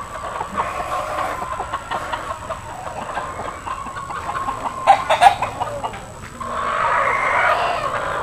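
Gamecocks and chickens calling and clucking around a farmyard, with a few sharp knocks about five seconds in.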